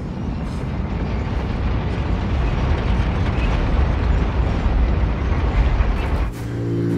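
Deep, loud rumble of the giant mobile city's machinery, building steadily. About six seconds in it cuts off and a held low chord of several steady tones takes over.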